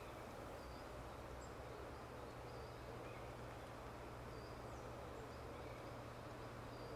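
Faint, scattered short high-pitched bird calls, a few with small falling glides, over a low steady hum: woodland birds calling, stirred up by a red kite perched nearby.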